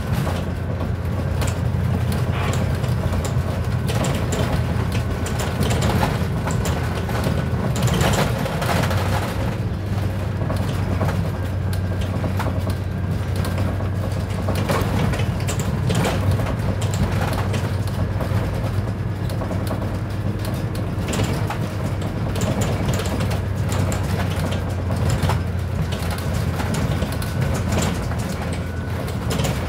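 Scania Citywide city bus heard from inside, near the front: the engine runs with a steady low drone as the bus drives along. Irregular light knocks and rattles come from the body and interior fittings over the road.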